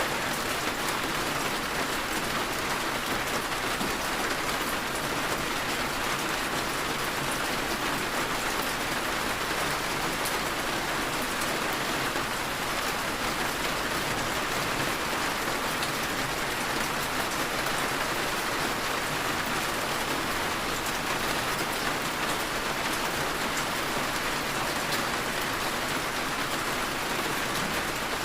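Steady heavy rain falling and pattering on surfaces, with scattered individual drop ticks.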